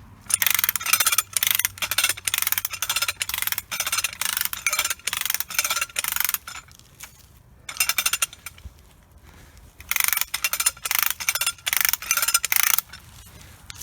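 Hand-cranked come-along ratcheting, quick runs of metallic clicks in three spurts with short pauses, as the rope is winched tight to pull a back-cut tree over.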